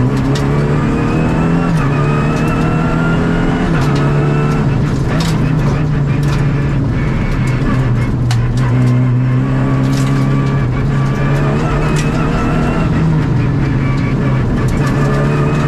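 Rally car engine heard from inside the cabin, running hard through the gears. Its pitch climbs and then drops at each shift, with scattered sharp knocks.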